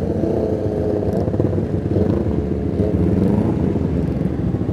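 Sport motorcycle engine running at low road speed, with the engines of a group of motorcycles riding close around it.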